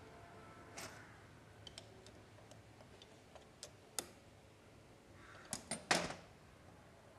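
Scattered light clicks and taps from hand work on a motorcycle engine, a few seconds apart. A sharper click comes about four seconds in, and a louder cluster of three knocks comes near the end.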